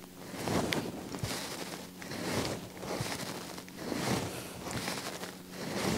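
A person doing dumbbell lateral raises. Each rep brings a swell of swishing noise, about one every second and a half.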